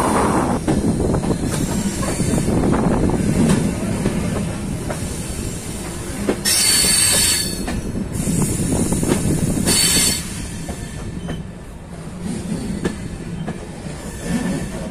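Passenger train rolling on the rails, a steady rumble with wheels clicking over rail joints, and two short bursts of high wheel squeal, about six and ten seconds in.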